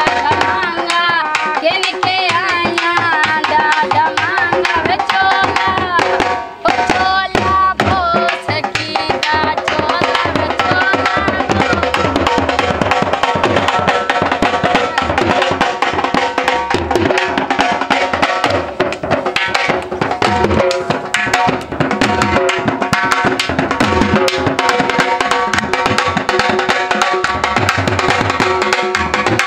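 Dhol, a double-headed barrel drum, beaten in a fast, steady folk rhythm, with women singing over it in the first part.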